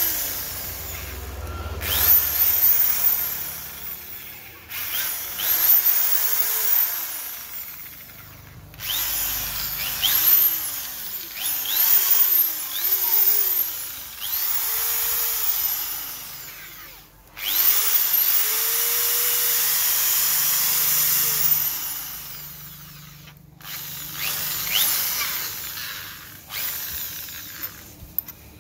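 Electric drill run in a series of short trigger pulls, the motor whine rising as it spins up and falling as it slows, with one longer steady run a little past halfway.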